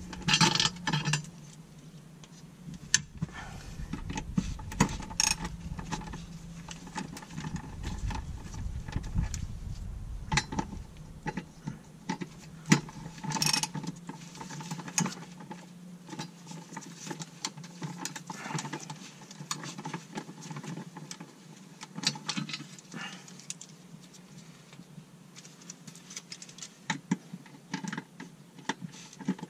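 Hand tools working bolts on a car's underside: a socket ratchet and wrench giving short, irregular metallic clicks and clinks, with a loud knock about 12 to 13 seconds in.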